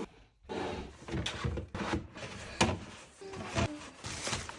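Household items being handled: a series of short knocks and scrapes about a second apart, like drawers, cabinet doors and kitchenware being moved.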